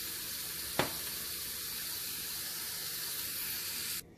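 Chicken pieces sizzling steadily in a stainless steel pan, with a single sharp click about a second in; the sizzle cuts off suddenly near the end.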